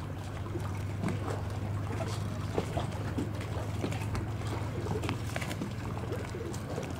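Lakeside water lapping and slapping irregularly against a wooden jetty, over a steady low hum.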